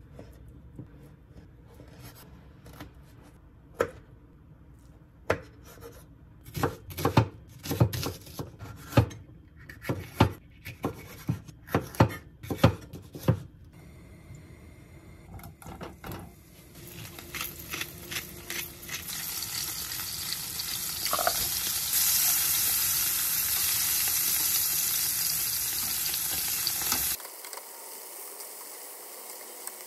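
Cooking in a kitchen. First comes a run of sharp knocks of a knife or utensil on a board or pan, about one to two a second. Then food starts sizzling in a hot pan, grows louder, and cuts off suddenly near the end.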